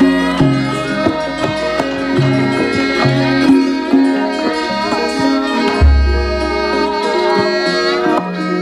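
Javanese gamelan music: steady metallophone notes over hand-drum strokes, with a woman's sung line gliding above. A deep low stroke sounds about six seconds in.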